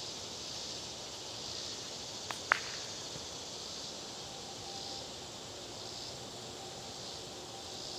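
Summer insects droning in a steady high haze that swells and fades about once a second. A sharp double click stands out about two and a half seconds in.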